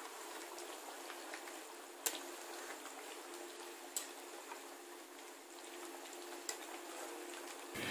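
Faint bubbling of a chicken curry simmering in a kadai, with a few light clicks of a metal spatula against the pan, about two seconds apart.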